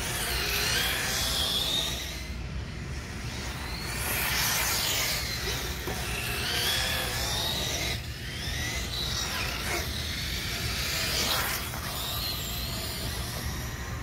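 Brushless electric RC car driving at speed, its motor whine rising and falling in pitch in several swells as it speeds up, slows and turns, over a steady low rumble.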